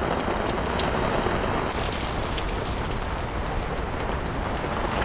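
Heavy, torrential rain falling on a camp tarp, with water streaming off the tarp's edge: a steady, even hiss.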